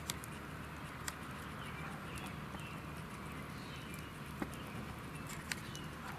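Quiet outdoor background with four faint, sharp clicks spread through it and a few faint high chirps.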